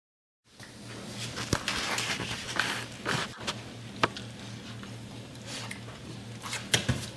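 A grizzly bear cub and a goldendoodle play-wrestling on a tile floor, the cub mouthing at the dog's neck and fur: rustling, scuffling and wet mouthing sounds with scattered sharp clicks, over a steady low hum. The sound starts abruptly about half a second in.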